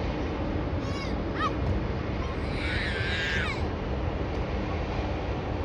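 A bird calls with a crow-like caw: two short calls about a second in, then one longer, drawn-out caw near the middle. A steady low rumble runs underneath.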